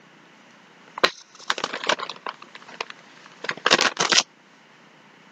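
Clear plastic bag being handled and pulled open: a sharp click about a second in, then crinkling, louder for a moment about three and a half seconds in.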